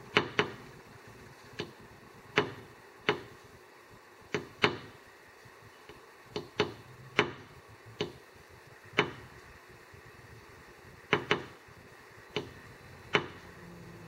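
Eurasian nuthatch hammering with its bill at a window: sharp, irregular taps, about fifteen, some in quick pairs.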